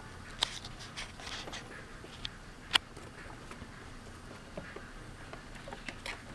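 Scattered light taps and scratchy clicks, a sharp click about three seconds in being the loudest.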